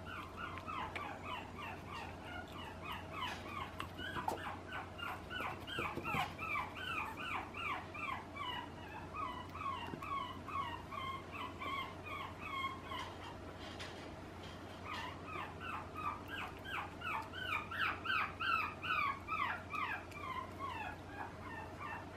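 A one-month-old puppy whimpering in a long run of short, high squeaks, each falling in pitch, several a second. It stops for about a second just past the middle, then starts again.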